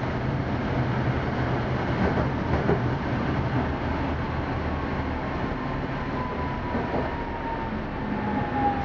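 Tatra T3 tram heard from inside the car while running along the track: a steady rumble of wheels and running gear with a low hum. In the second half a faint whine falls slowly in pitch as the tram slows.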